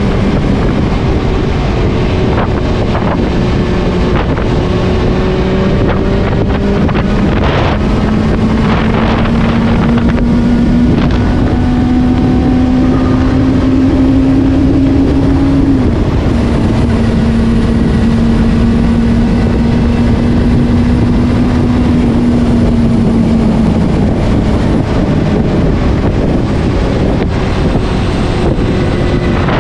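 Benelli TNT 600i's inline-four engine running at steady revs under heavy wind noise on the microphone. The engine note rises slowly, drops suddenly about halfway through, holds, then eases off with several seconds left.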